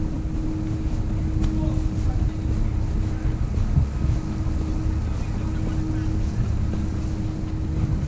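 Snowstorm wind buffeting the microphone as a continuous low rumble, with a faint steady hum running underneath that drops out briefly a few times.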